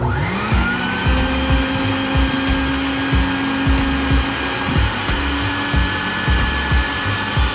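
Bucket Head wet/dry vacuum powerhead switched on over a boat's water tank: its motor whine rises in pitch during the first half-second, then runs steadily. Background music with a steady beat plays underneath.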